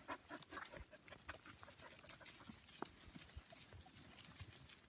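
Faint, irregular rustling and crackling of footsteps and puppies' paws through dry fallen leaves.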